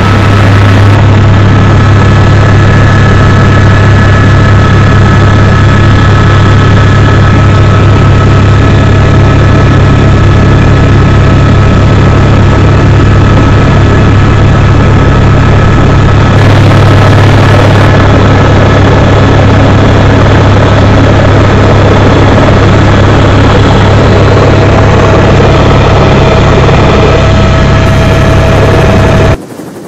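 Eurocopter AS350 B3 helicopter in flight, heard from inside the cabin: a loud, steady drone with several steady high whining tones over it. It cuts off abruptly near the end.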